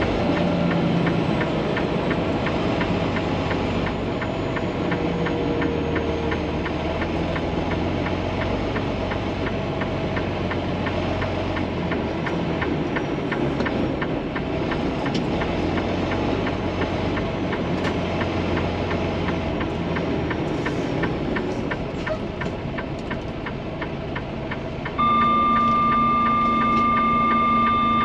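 Freightliner semi-truck's diesel engine running steadily at low revs, with a regular ticking over it. About 25 seconds in, a loud, steady horn-like tone sounds for about four seconds.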